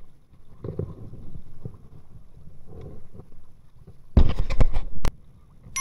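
Kayak paddle strokes in the water, a quiet low splashing. About four seconds in comes a second of loud splashing and knocking that ends in one sharp click.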